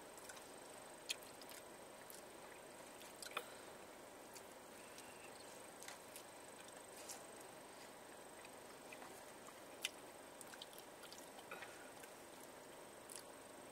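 Quiet eating sounds inside a car: chewing and plastic forks clicking and scraping in foam takeout containers, heard as scattered short clicks over a low steady hiss.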